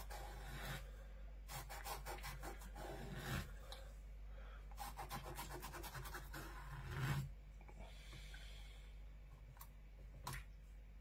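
Knife blade sawing across the rough, sandpaper-like skin of a dogfish behind the head: runs of faint rasping, scratchy strokes, with a couple of sharp clicks near the end.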